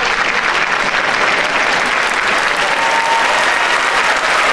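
Large theatre audience applauding steadily after a comedian's punchline.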